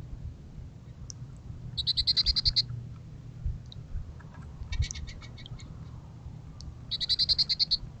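Goldfinches calling: three short bursts of rapidly repeated high, twittering notes, about ten a second, each under a second long.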